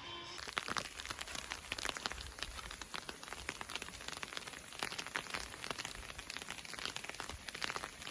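Snow and sleet hitting a canvas tent: a dense, irregular patter of many quick ticks.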